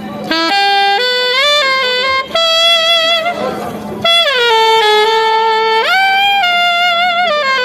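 Solo saxophone playing a melodic line during a stage sound check. Its notes step up and down in two phrases, with a short break about four seconds in, over a faint steady hum.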